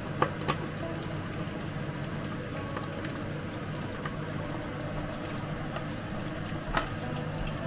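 Pork leg deep-frying in a pot of hot oil under a glass lid: steady sizzling and bubbling with scattered crackles. A few sharp clicks come from the glass lid being handled, twice just after the start and once near the end.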